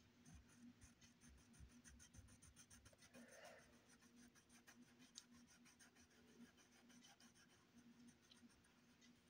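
Faint scratching of a coloured pencil shading on paper in quick, short back-and-forth strokes, over a faint steady hum.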